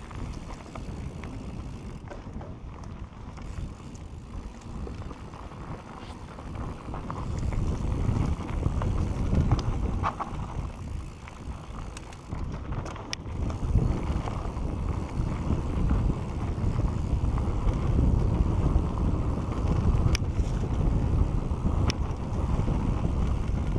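Rolling rumble of a Santa Cruz Bronson mountain bike's tyres and frame on a fast dirt-singletrack descent, with wind buffeting the camera's microphone; it grows louder from about seven seconds in as speed picks up. A few sharp clicks and rattles from the bike come through.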